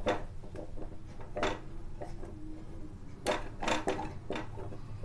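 A spoon knocking and scraping against a kadhai and bowl while cooked sabzi is ladled out. There are about five sharp knocks, three of them close together near the end, over a low steady hum.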